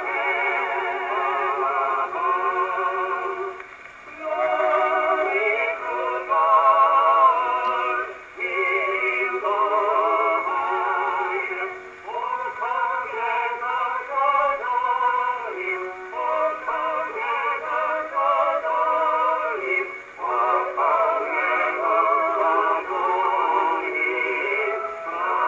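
A c.1915 Columbia wind-up phonograph playing a 78 rpm record of singing with a strong vibrato, in phrases with short breaks between them. The acoustic reproduction sounds thin and narrow, with no deep bass and no bright top.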